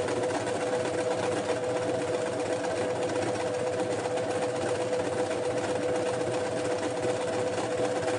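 Domestic sewing machine running steadily at speed, stitching knit fabric on its overlock stitch setting, an even whirr with a constant hum and no pauses.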